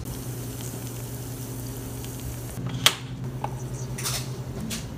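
Butter and ghee with valerian tea bags sizzling and simmering in a small stainless steel pot on the stove, over a steady low hum. One sharp click comes a little before three seconds in.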